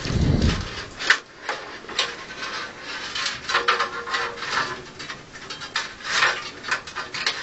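Rubbing, scraping and clicking of an empty computer case being handled and turned over, with a dull thump right at the start.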